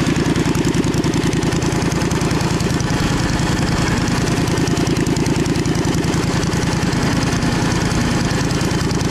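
Small V-twin engine running steadily at an even idle, with a fast regular firing pulse.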